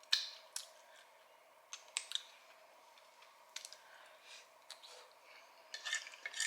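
Close-miked eating sounds: soft crunches and mouth clicks from chewing crispy fried chicken, scattered at irregular intervals with a small cluster near the end.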